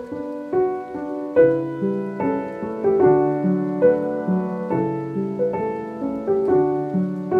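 Piano music: a run of struck notes and chords over a low, moving bass line.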